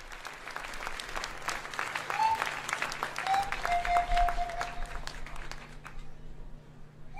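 Audience applauding; the clapping thins out and dies away near the end. Two brief whistle-like tones sound over it in the middle.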